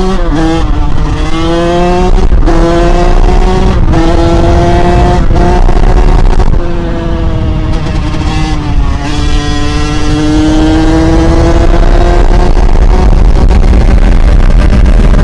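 Kawasaki KX100 two-stroke single-cylinder dirt bike engine at full throttle, winding up through the gears. The pitch climbs and drops back at each upshift, three quick shifts in the first five seconds, then one long slow climb in top gear toward its top speed. Wind rushes over the microphone.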